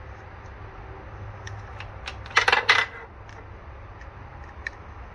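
A brief, jagged metallic clatter about two and a half seconds in, with a few faint ticks before and after it.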